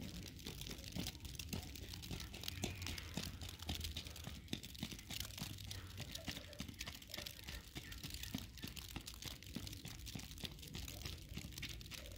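Faint outdoor ambience in falling snow: a low wind rumble with dense, irregular crackling and ticking throughout.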